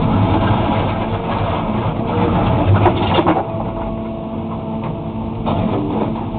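Excavator's diesel engine running under load while the bucket scrapes and breaks up asphalt. The scraping and crunching are heaviest over the first three seconds or so, with a few sharp cracks around the three-second mark, then ease back over the steady engine.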